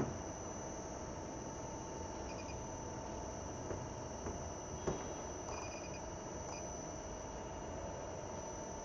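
Steady hum and high-pitched whine of a CNC machining center running its program as a dry run. A few light clicks come about four and five seconds in, and short high beeps sound a couple of times.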